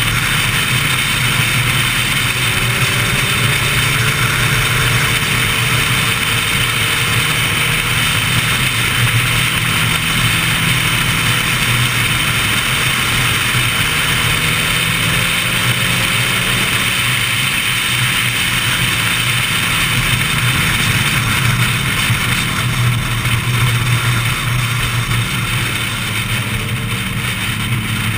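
Motorcycle ridden at highway speed: steady rushing wind noise over the drone of the sport bike's engine, easing slightly near the end.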